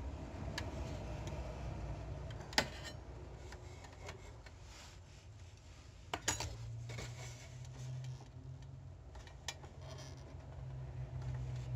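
Small hard clicks and taps as an HP LaserJet P1102's plastic pickup roller and its clip are pried with a pick and worked off the shaft by hand. The sharpest click comes about two and a half seconds in, with a few more around six seconds and one near nine and a half. A low steady hum sits underneath from about six and a half seconds on.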